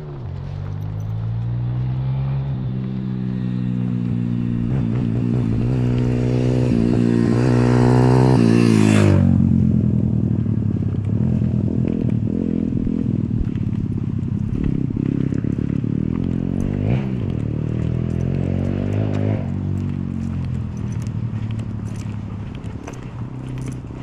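A motor vehicle passes close by: its engine grows louder as it approaches, goes past about nine seconds in with a sudden drop in pitch, then fades slowly away.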